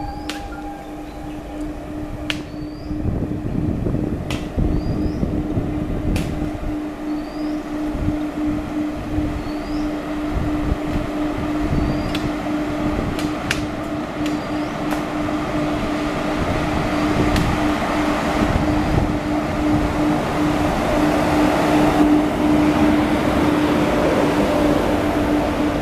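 Three coupled WAG-7 electric locomotives running slowly past, their blowers giving a steady hum with a rumble of wheels that grows louder as they come close.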